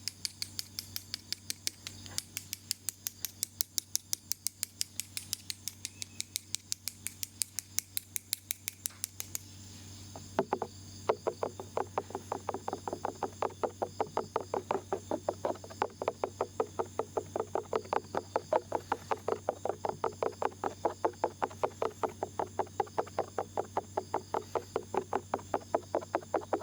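Small ear pick scraping rhythmically inside an ear-shaped microphone, about four or five quick strokes a second. After about ten seconds the strokes turn duller and fuller.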